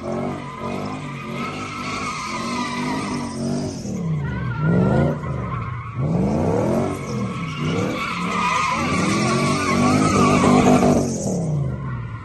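Mercedes-Benz W124 E500's M113 V8 revving up and down repeatedly while drifting, with the tyres squealing over the engine. The squeal and the engine die away near the end.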